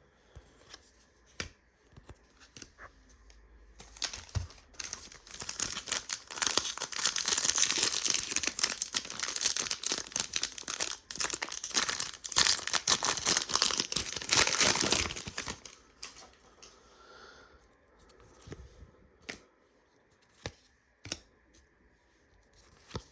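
A few light clicks of cards being handled, then a plastic trading-card pack wrapper torn open and crinkled for about eleven seconds, starting about four seconds in and stopping abruptly; a few light clicks and taps follow.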